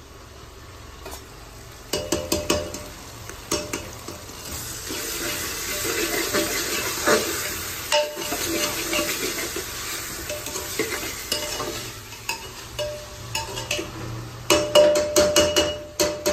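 Onions, potatoes and tomato sizzling in oil inside an aluminium pressure cooker while a metal ladle stirs and scrapes against the pot. The sizzle swells a few seconds in, and near the end comes a quick run of ringing ladle clinks on the pot.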